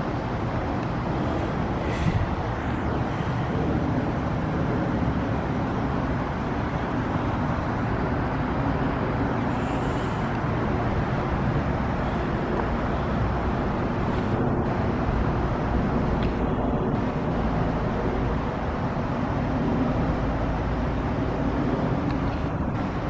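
RunTru heat pump outdoor unit running in a defrost cycle: a steady hum under a broad, even hiss.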